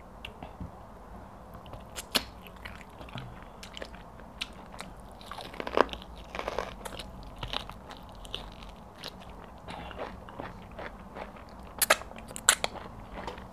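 Close-miked chewing and wet mouth sounds of a person eating pounded yam and egusi soup by hand, with scattered sharp smacks and clicks. There is a busier stretch of smacking about six seconds in, and two loud clicks near the end.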